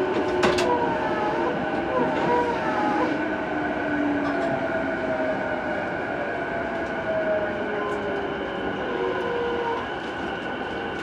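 Running sound inside the motor car of a JR East E233-2000 series electric train: the inverter and traction motors give several tones that slide slowly down in pitch over the wheel and rail noise as the train slows for a station stop. A sharp click from the rails comes about half a second in.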